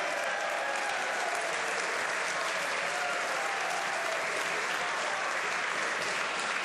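Members of Parliament applauding, a steady wash of clapping that follows the Prime Minister's answer.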